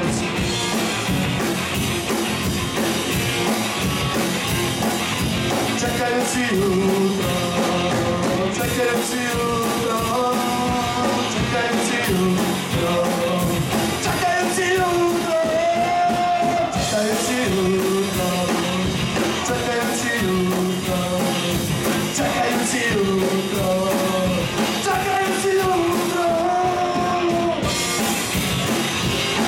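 Live rock band playing a song, with a lead vocalist singing over the band.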